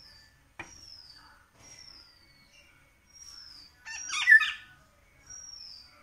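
Indian golden oriole calling: one loud harsh squawk about four seconds in, among repeated thin, high falling whistles.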